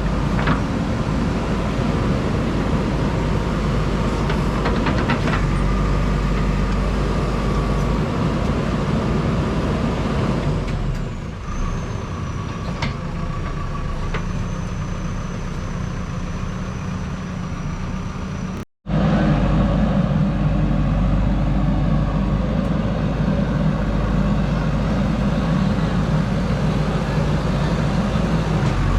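JCB backhoe loader's diesel engine running steadily, with a few sharp knocks in the first five seconds. The sound dips for a moment before the middle and cuts out completely for an instant about two-thirds of the way through.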